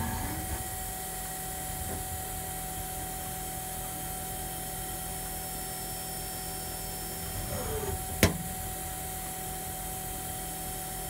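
1999 Super Kia Turn SKT-21V CNC lathe running through its cycle: a steady hum with a constant whine. Past the middle there is a short falling whine, then one sharp click.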